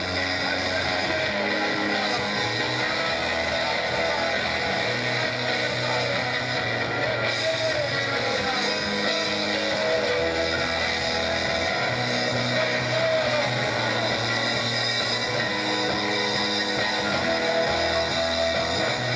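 Music with sustained chords, a bass line and guitar, without clear singing.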